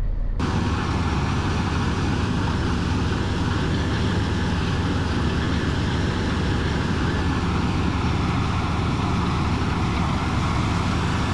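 Steady engine and running noise of a heavy vehicle, cutting in abruptly about half a second in and holding even throughout.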